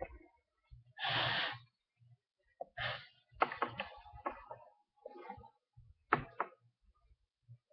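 Handling noises: a breathy rush of air about a second in, followed by scattered light knocks and clicks.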